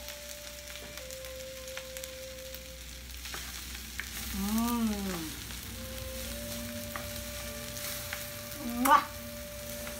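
Fried rice sizzling steadily in a hot pan as it is stirred and turned with a wooden spatula and tongs, with a few light clicks of the utensils against the pan.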